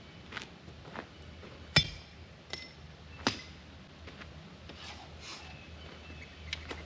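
Scattered knocks and clinks of tools and blocks being handled while setting up to jack up a sawmill, with the sharpest knock about two seconds in and another a second and a half later.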